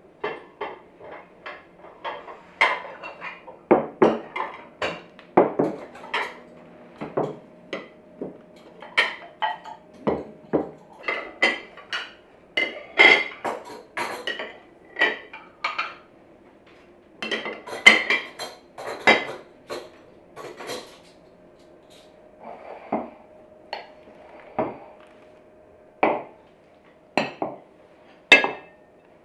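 China plates and serving dishes clinking and knocking against each other and onto the table in quick, irregular strikes as a table is laid. Near the end, stemmed wine glasses are set down with brighter, ringing clinks.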